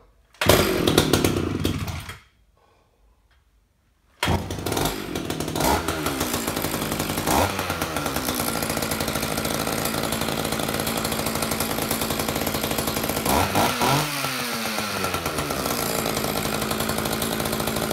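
Old Echo CS-550EVL two-stroke chainsaw being pull-started with no bar and chain fitted: it fires on the first pull and runs for about two seconds before dying. A couple of seconds later it starts again and keeps running steadily, revving up briefly twice. The saw is running again after its carburetor got new metering and fuel pump diaphragms.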